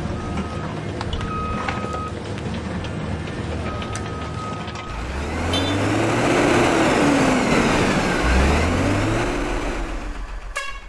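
Truck sound effects: a steady rumble with short, repeated reversing-style beeps, then about five seconds in a louder engine-like rumble whose pitch rises and falls twice. A sharp click comes near the end.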